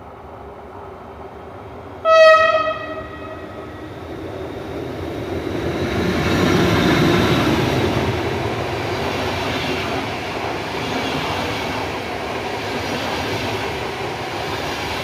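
ÖBB 'Alpenstaubsauger' electric locomotive sounding one short blast on its Makrofon horn about two seconds in, then pulling out with a double-deck push-pull train. Its running noise swells over the next few seconds and stays steady, with rail clatter as the train passes.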